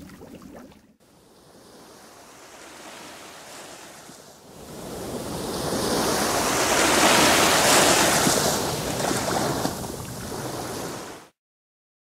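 Ocean surf sound effect: a wash of wave noise that swells to a peak about eight seconds in, eases off, and cuts off suddenly near the end.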